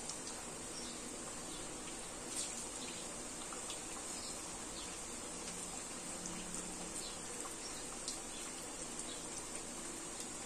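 Lauki kofta balls deep-frying in hot oil in a kadhai: a steady sizzle with scattered faint crackles and pops.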